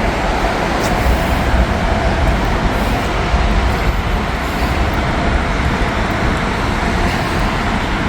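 Steady noise of nearby highway traffic, a continuous wash with a strong low rumble and no single vehicle standing out.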